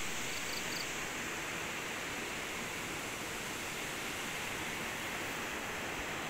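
Steady outdoor ambient hiss, with three faint high chirps about half a second in.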